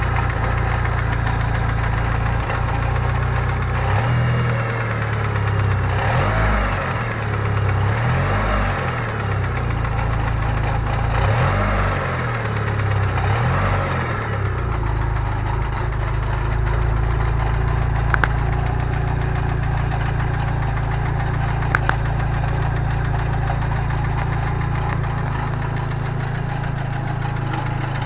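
Car engine running with a rattle, revved up and down several times between about four and fifteen seconds in, then settling back to idle; two sharp clicks come later. The rattle comes from a loose starter ring gear on the Fidanza flywheel, not the rod bearings first suspected.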